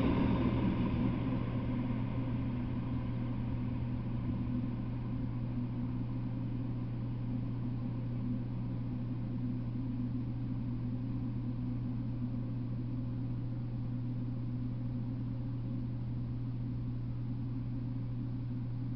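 Freight train rumble fading away over the first two or three seconds as the last covered hopper car clears. A steady low hum and faint hiss remain.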